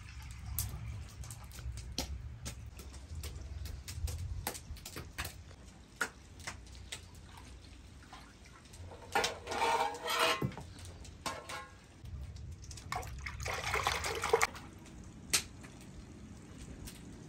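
Liquid splashing in two bursts, about nine and thirteen seconds in, among scattered light clicks and knocks.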